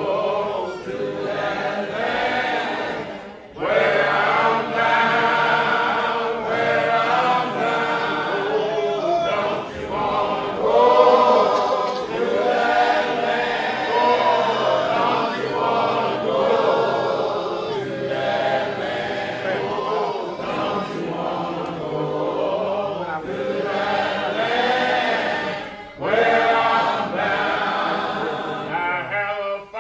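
A choir singing a song, its voices held in long phrases, with brief breaks between phrases about three seconds in and near the end.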